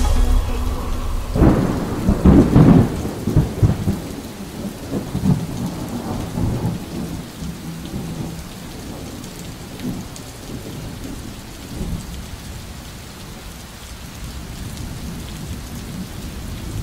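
Thunderstorm: rain falling, with a loud roll of thunder about a second and a half in that slowly dies away.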